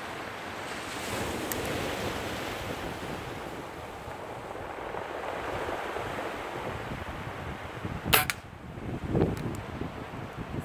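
Surf and wind noise, with a single sharp shot from a .22 Webley Hurricane spring-piston air pistol about eight seconds in, followed by a short, lower rush of noise.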